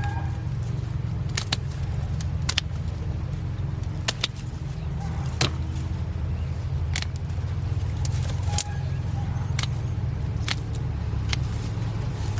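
Shears snipping through catnip stems, sharp irregular cuts about once a second, over a steady low engine-like hum.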